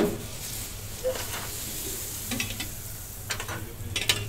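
Fat sizzling on a hot flat-top griddle, coming in abruptly and then hissing steadily. Near the end come a few sharp metal clinks as rectangular steel egg molds are set down on the griddle.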